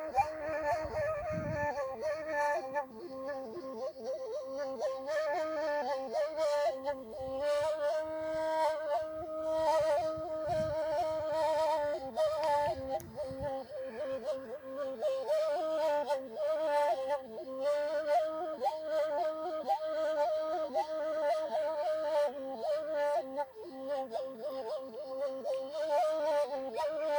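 Gasba, an end-blown reed flute, playing a solo melody that wavers and turns around one held pitch, with fast ornaments. Brief low rumbles come in about a second in and again around ten seconds in.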